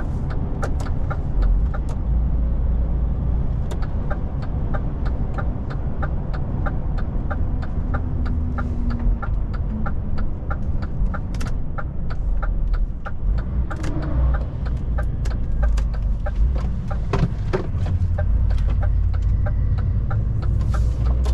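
Heavy truck cab on the move: low diesel engine and road rumble, with a light regular ticking about three times a second. The rumble grows heavier near the end.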